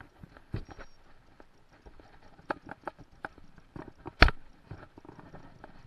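Scattered sharp clicks and knocks as a spinning reel is cranked by hand in an aluminum boat, with one louder knock a little after four seconds in.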